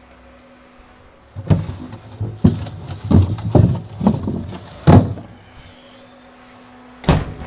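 Groceries being shoved and knocked into a fridge's frosted-up freezer compartment: a run of thuds and clunks for about three and a half seconds, then one more sharp thump near the end.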